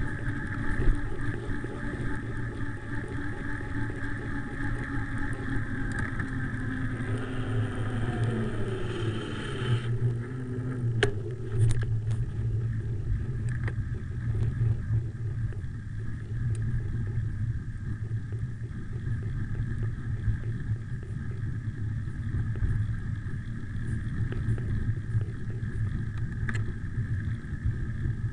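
Wind rumbling on a handlebar-mounted camera's microphone as a road bike rolls fast downhill on asphalt. A steady whine falls in pitch and stops about ten seconds in. A few sharp knocks follow soon after, and the rumble carries on.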